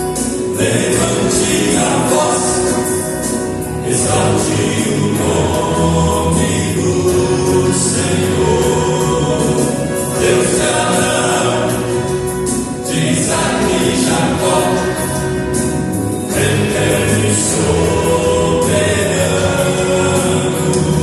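A vocal quartet singing a gospel hymn in close harmony over a music backing with a light, steady beat.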